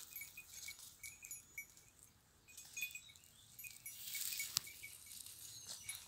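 Small goat bells tinkling faintly and off and on as the goats move and browse, with one sharp click a little past halfway.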